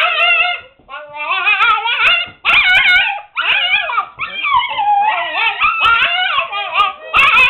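Seven-week-old husky puppies making a racket together: several high, wavering cries overlapping one another, with only short breaks. It is the protest of pups shut in a puppy pen.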